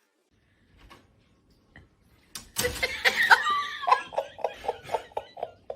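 A person laughing, breaking out about two and a half seconds in and going on as a quick run of short 'ha' bursts.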